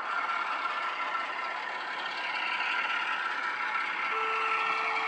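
Class 08 shunter diesel engine sound from an ESU LokSound decoder, playing through a model locomotive's small speaker. The engine runs steadily, and a steady whine joins about four seconds in.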